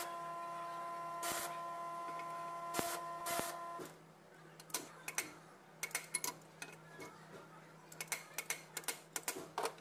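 Angle grinder running with a steady whine, cutting into steel in a few short strokes, then stopping abruptly about four seconds in. After that, steel plates clink and tap against each other and the bench vise as they are handled.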